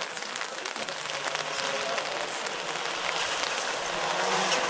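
Rally car engine approaching, a faint hum that grows louder towards the end, over a steady hiss.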